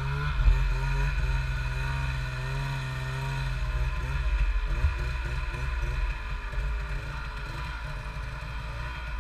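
Snowmobile engine running under load through deep powder, its pitch rising and falling continually as the throttle is worked.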